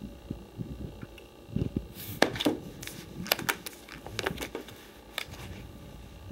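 Plastic sleeve pages of a trading-card binder crinkling and clicking as a page is turned, a quick run of sharp crackles in the middle.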